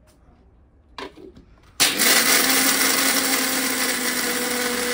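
Kitchen mixer grinder (mixie) starts suddenly about two seconds in and runs steadily, grinding cashews into a fine paste in its steel jar. A light knock comes about a second in, before the motor starts.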